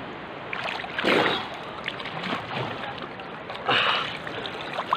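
Seawater sloshing and splashing around swimmers, close to the microphone, with two louder splashes: one about a second in and another about two and a half seconds later.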